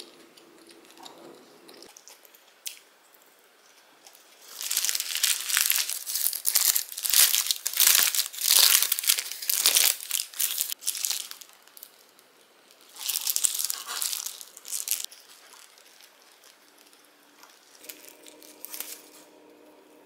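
Paper sandwich wrapper crumpled and crinkled by hand: a long spell of crackling starting about four seconds in, another shorter spell around thirteen seconds in, and a brief rustle near the end.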